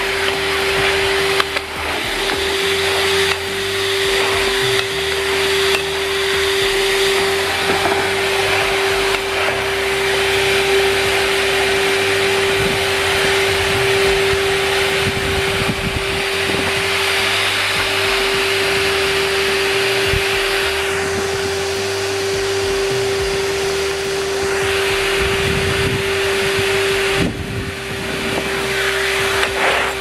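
Numatic Henry wash vacuum cleaner running continuously, drawing air through its hose and floor brush as the brush is pushed over a concrete patio. It makes a steady motor tone under a rushing hiss of air.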